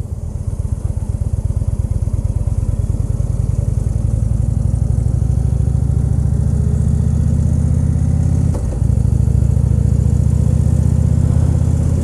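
2014 Indian Chief Vintage's Thunder Stroke 111 V-twin engine running under way as the bike cruises. It grows louder over the first few seconds and briefly dips about eight and a half seconds in.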